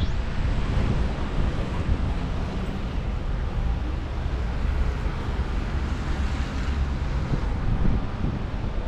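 Wind buffeting the microphone in a steady low rumble, over outdoor street noise.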